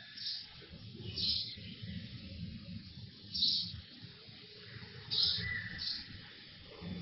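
Short, high bird chirps every second or two, over a low background rumble.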